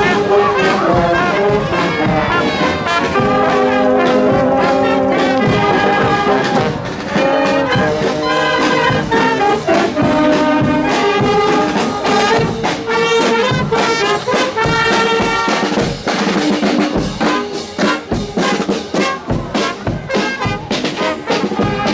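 Marching wind band playing a tune, brass to the fore, with a drum beating time.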